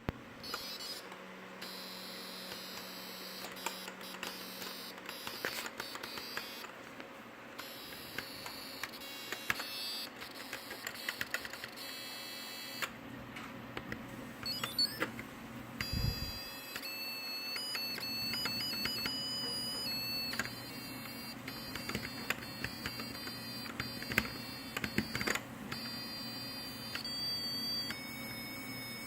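Keys of a Planck 40% ortholinear mechanical keyboard being pressed in irregular clicks. From about halfway on, short electronic beep tones at set pitches sound with the key presses, notes played from the board.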